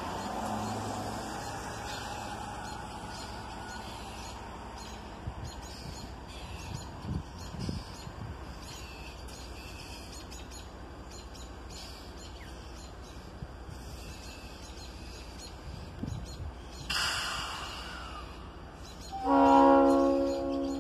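Birds chirping against a low background. About 19 seconds in, the GP30 diesel locomotive's Leslie RS3L air horn sounds one long blast, a steady chord of several notes that fades out near the end.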